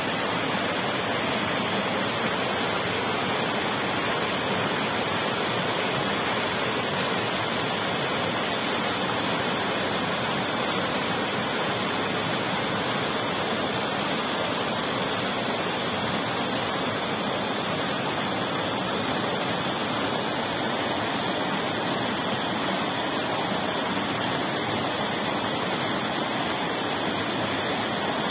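River water rushing steadily over a small rapid.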